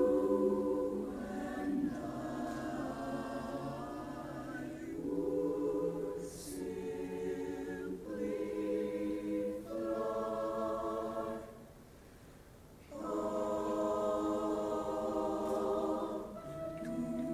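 High school choir singing held chords without clear words, the chord changing every second or two, with a short hush about twelve seconds in before the voices come back in.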